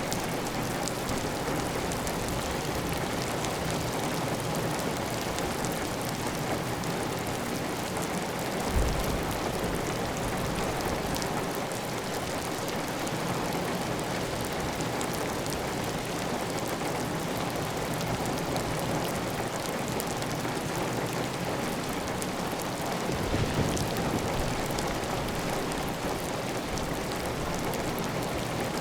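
Heavy, steady rain pattering on a clay tile roof, with water running off the roof edge in an even stream. A brief low thump comes about nine seconds in, and a low rumble swells and fades near the end.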